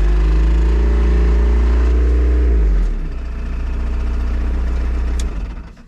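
Repowered 2.2-litre Isuzu C223 diesel in a Takeuchi TL130 tracked skid steer running at full throttle. About three seconds in it is throttled down and runs lower, then it is shut off near the end.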